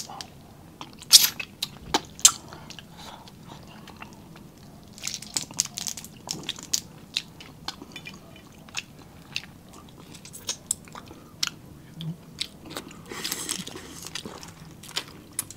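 Close-miked eating of cooked alimasag crab: shell pieces cracking and snapping as the meat is picked out, with wet chewing and lip smacks. The loudest cracks come about one and two seconds in, and there is a longer sucking slurp near the end.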